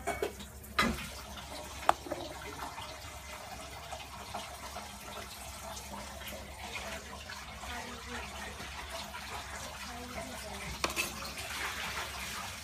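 A metal spoon scooping wet boiled beans and their cooking water out of a steel pot and dropping them into a steel bowl: wet sloshing and small clatters, with two sharp clicks of the spoon on metal near the start.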